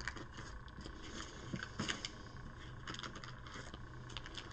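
Faint rustling and clicking of small plastic bags and plastic game pieces handled in a board-game box insert, a few light ticks standing out, over a low steady hum.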